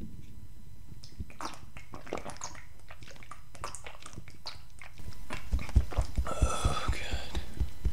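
A man drinking from a beer bottle: wet mouth clicks and gulping swallows, then a run of heavier low gulps with a brief breathy vocal sound about six seconds in.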